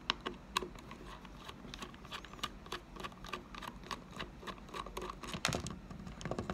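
Small, irregular clicks and ticks of a T15 Torx screwdriver turning screws out of the metal belt clip on a Sennheiser wireless bodypack, with a couple of louder clicks about five and a half seconds in.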